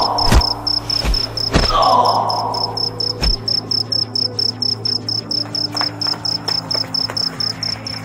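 A cricket chirping steadily, about five high chirps a second, over a low steady drone. A few sharp knocks and short noisy bursts in the first two seconds are the loudest sounds.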